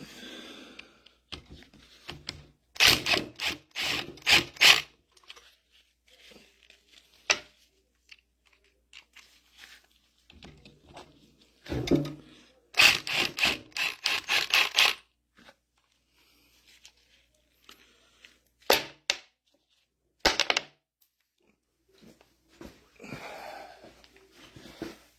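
Sharp knocks and clatters of metal parts and tools being worked during disassembly of a mini excavator's hydraulic control valve. They come in two bursts of rapid strikes, a few seconds in and again about halfway, with single knocks between and after.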